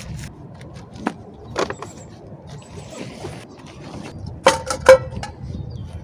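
Scattered knocks and clicks, then two loud ringing metallic clinks in quick succession about four and a half seconds in, over a low steady rumble.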